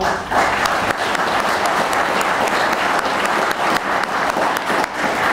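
Audience applauding, a steady mass of hand clapping from a seated crowd.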